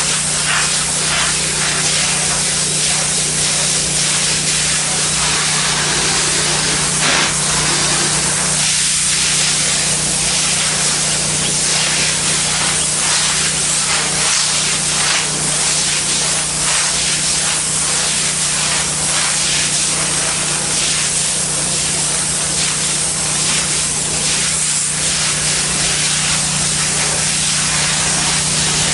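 Pressure washer spraying water from a low-pressure tip onto ceramic tile: a continuous loud hiss of spray that swells and eases as the wand moves, over the steady low hum of the running machine.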